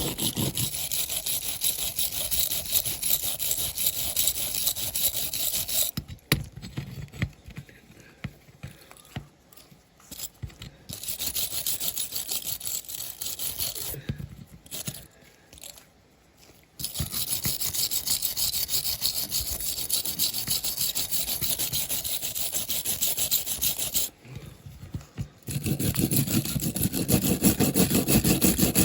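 Hand wire brush scrubbing a small die-cast metal car body in rapid back-and-forth strokes, cleaning off the remaining bits, with three short pauses.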